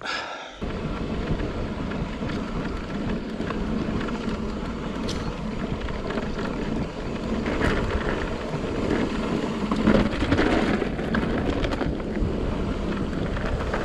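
Mountain bike riding along a rough trail: a steady rush of wind on the microphone mixed with the rumble and rattle of the tyres and bike over the ground, starting abruptly about half a second in.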